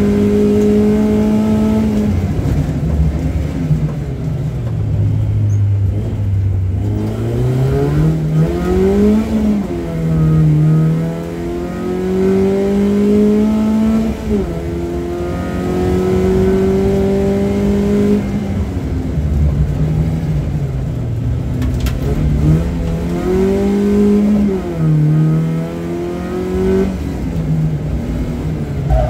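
BMW 318ti rally car's four-cylinder engine at full effort, heard from inside the stripped, caged cabin. It revs up through the gears with a sharp drop in pitch at each upshift, and falls to low revs for a few seconds about four seconds in before climbing again.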